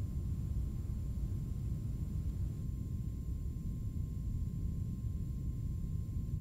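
Steady low rumbling noise with a faint steady high tone over it, cutting off abruptly at the end.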